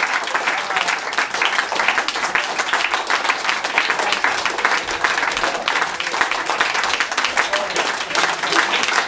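Audience and cast applauding: dense, steady clapping that keeps up without a break.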